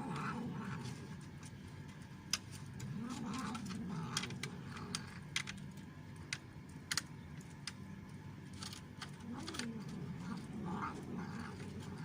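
Cat growling low while eating, in drawn-out rising-and-falling moans: near the start, around three seconds in and again near the end. The noise is a food-guarding growl that keeps other cats away. Sharp crunching clicks from chewing dry food come between the growls.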